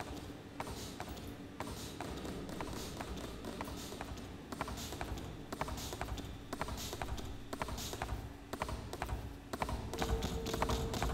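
Milking machine pulsators clicking in several overlapping rhythms over a steady hum of the running machine. A higher steady tone joins near the end.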